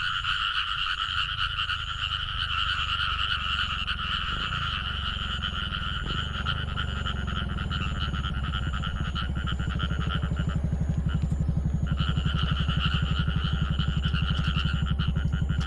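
A chorus of many frogs calling continuously in a dense, high trilling din. It thins out for about a second in the middle, while a fast, even low pulsing underneath grows stronger through the second half.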